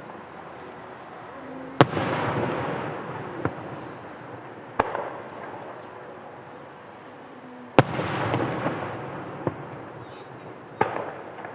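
Aerial fireworks bursting: two loud booms, about six seconds apart, each followed by a noisy tail that fades over a couple of seconds, with several smaller, quieter pops in between.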